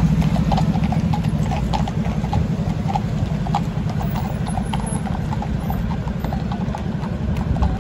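Hooves of several police horses clip-clopping at a walk on tarmac, the strikes growing sparser and fainter as the horses move away, over a steady low rumble.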